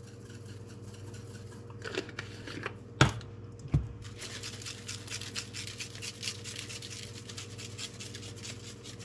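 Two sharp knocks of a spice jar set down on the wooden counter, then a spice shaker shaken quickly over raw chicken pieces, a fast rattling scratch lasting several seconds.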